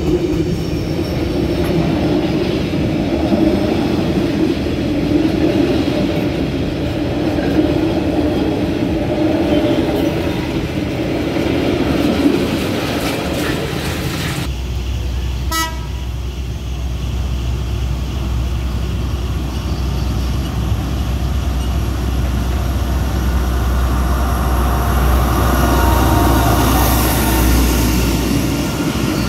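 A train passing close by with its horn sounding, over a heavy running rumble. About halfway through the sound changes abruptly to a deep rumble, with pitched horn-like tones again near the end.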